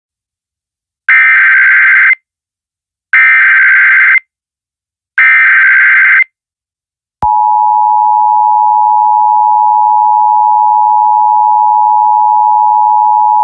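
Emergency Alert System SAME header: three one-second bursts of warbling digital data tones, about a second apart. About seven seconds in, the steady two-tone EAS attention signal starts and holds.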